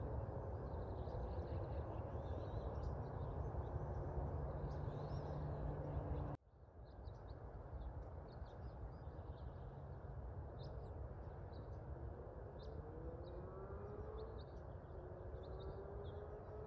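Outdoor ambience: a steady low rumble with faint high bird chirps. The sound cuts out abruptly about six seconds in and comes back. In the second half a distant siren wails, slowly rising in pitch.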